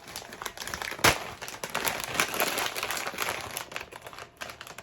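Rap Snacks chip bag being torn open and crinkled, with one sharp crack about a second in.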